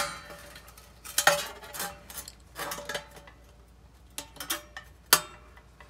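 Steel pliers clicking and clinking against the sheet-aluminium housing of a dryer heating element while a thermostat is being pushed down into place: a handful of separate metallic clicks, the sharpest about five seconds in.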